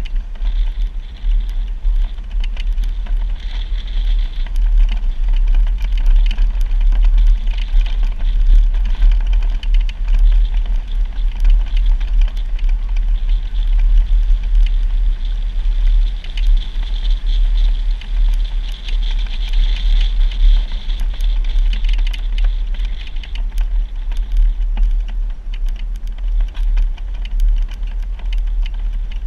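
Off-road vehicle driving over a rough dirt trail: a steady low rumble with many small rattles and crunches of gravel and stones under the tyres.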